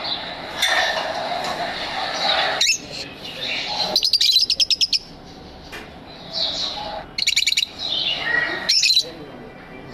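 Lovebirds chirping and chattering, with a quick run of rapid repeated chirps about four seconds in and another about seven seconds in.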